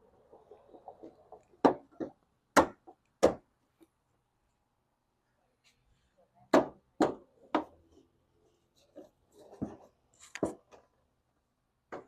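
Sharp knocks and clicks of parts being handled and pressed into place while a car headlight is fitted and lined up. Four come in the first few seconds, three more around the middle and one near the end, with soft handling rustle between.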